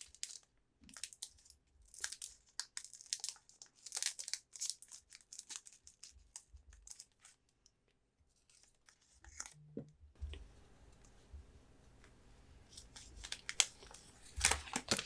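Foil Pokémon booster pack wrapper being torn open and crinkled by hand, in a run of short crackly rips and rustles. It pauses for a couple of seconds midway, and more crinkling follows near the end.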